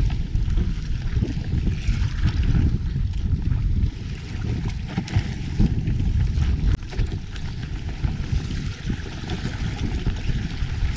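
Wind buffeting the microphone over a choppy sea, with waves washing and slapping against the fiberglass outrigger boat's hull and bamboo outriggers.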